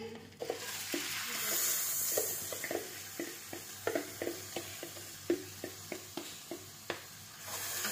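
Dry rice poured into hot oil in a pot, sizzling, with a fast run of small pops and crackles. The hiss swells about a second in.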